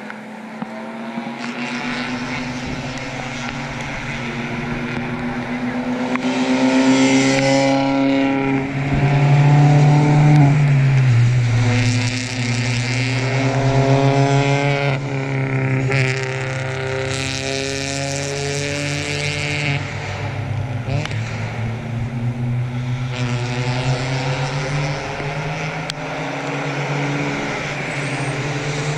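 Small four-cylinder race cars (Spec Miata and B-Spec) running at speed on a wet circuit. Several engines overlap, each pitch climbing through the gears and dropping at the shifts, loudest around ten seconds in, with a hiss that swells and fades as the cars come through.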